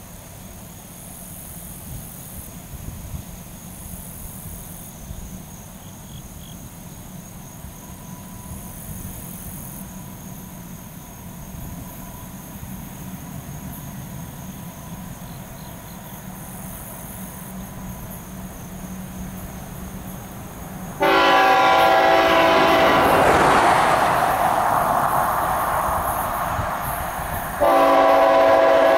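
CSX diesel freight locomotive's multi-chime air horn, sounding for a grade crossing. One long blast starts suddenly about two-thirds of the way in, and a second blast comes near the end. Before the horn, the low rumble of the approaching train slowly grows louder.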